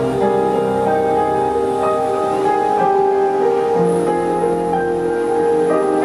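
Slow instrumental music of long held notes that shift to new chords about once a second.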